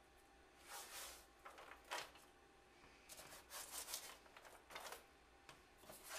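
A slotted spatula stirring and scraping half-roasted nut and coconut granola on a metal baking sheet: a handful of short, faint rustling scrapes with quiet between.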